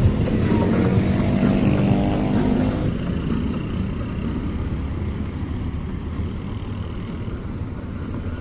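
A motor vehicle drives past close by on a wet highway. Its engine note is loud at first and fades out about three seconds in, leaving a steady hiss of heavy rain and tyre spray.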